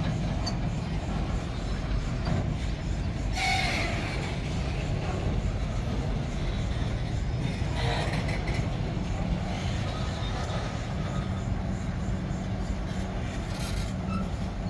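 Freight train of bauxite ore wagons rolling past close by: a steady low rumble of steel wheels on the rails, with brief sharper screeches from the wheels about four seconds in, around eight seconds and near the end.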